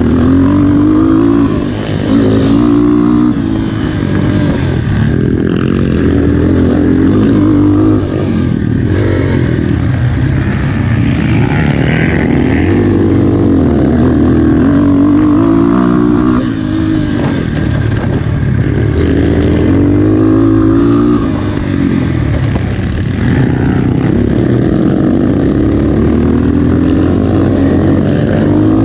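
Dirt bike engine running under load on a trail ride, its pitch rising and falling as the throttle is opened and eased off, with brief drops a few times where the rider backs off.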